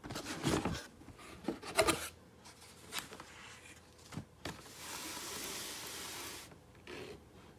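Handling noises: a series of rubs and sharp clicks, then a steady hiss lasting about a second and a half, and a brief rustle near the end.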